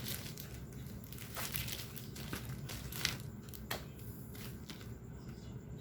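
Packaging of a boxed graphics card being handled: scattered crinkles and sharp clicks over a steady low background hum.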